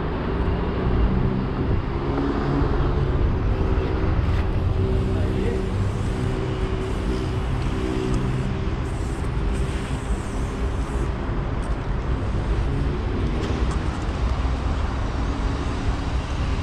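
Steady city road-traffic noise with the low hum of an engine running, fading a little near the end.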